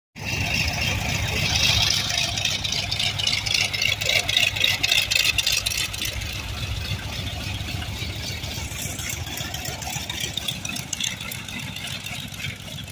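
Vought F4U Corsair's Pratt & Whitney R-2800 radial engine running as the fighter taxis, a steady low rumble with rapid pulsing that grows quieter in the second half as the aircraft moves away.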